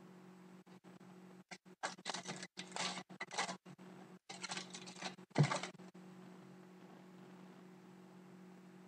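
Trading card packs and cards being handled: a run of crinkling, rustling bursts over about four seconds, like a pack wrapper being opened and cards shuffled, with a sharp knock partway through. A faint steady hum lies underneath.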